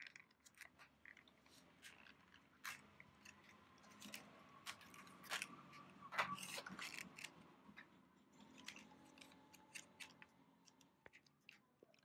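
Faint crinkling and scattered small clicks of RAM sticks being unboxed from their packaging and handled.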